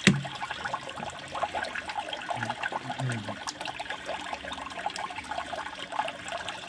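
Water from the pond pump's outlets splashing and trickling steadily into a small tub pond, with a sharp click right at the start.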